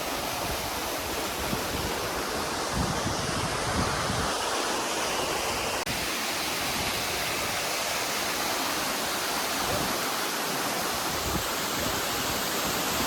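Waterfall rushing: a steady, even roar of falling water with an uneven low rumble beneath it.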